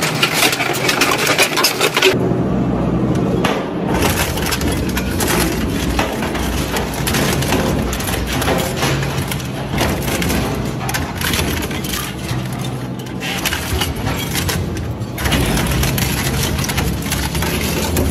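Industrial twin-shaft shredder with hooked cutter discs crushing and tearing cast metal engine parts: dense cracking and crunching over the steady low drone of the drive. The sound changes abruptly a few times.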